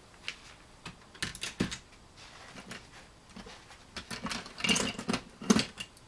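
Swiss Army knives being handled: a string of metallic clicks and light knocks, sparse at first and busiest between about four and six seconds in.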